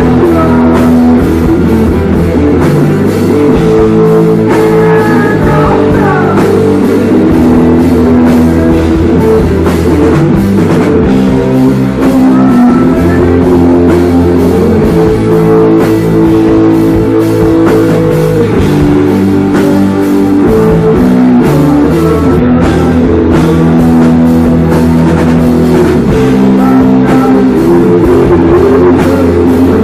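Live rock band playing loudly: electric guitar chords over a full drum kit with steady cymbal hits, with no break.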